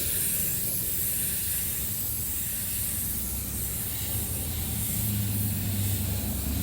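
Automotive paint spray gun laying a wet coat of white basecoat: a steady hiss of atomizing air, with a low hum underneath that grows a little stronger near the end.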